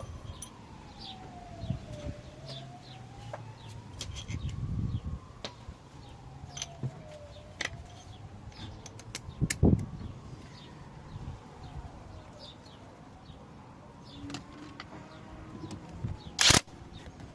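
A faint, distant siren wailing slowly down and up, over and over, with birds chirping. Scattered clicks and knocks from work on the car, one louder knock about ten seconds in and a sharp rasp near the end.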